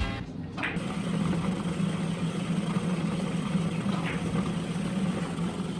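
A steady motor-like hum with a constant low drone, like a small motor or fan running, and a faint short sound about half a second in and again about four seconds in.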